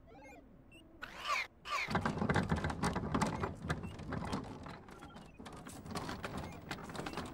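Sound effects of a cartoonish vacuum-cleaner character scurrying about: a few short warbling squeaks, then from about two seconds in a rapid clicking, rattling clatter.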